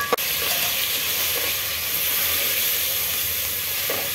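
Onion, tomato and spice masala sizzling steadily in hot oil in a metal cooking pot, just after the spice powders have gone in. A short metallic clink at the very start.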